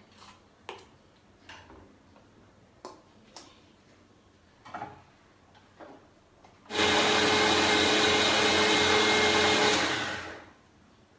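Electric mixer grinder (mixie) run in one short burst of about three seconds, grinding soaked moong dal and ragi flour with water into batter. The motor starts suddenly, runs steadily with a whine, and winds down once it is switched off. Before it starts there are a few light knocks and clicks as the jar is handled.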